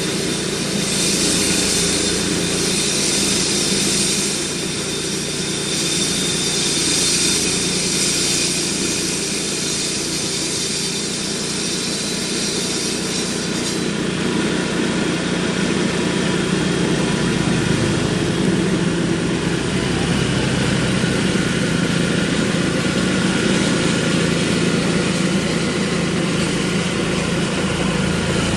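A motor engine running steadily at idle, with a high hiss over it that stops about fourteen seconds in.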